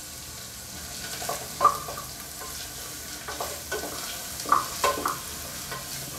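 Onions sizzling in hot oil in an aluminium pressure cooker, a steady hiss. From about a second in, a wooden spatula stirs them, scraping and clinking against the pot in irregular strokes.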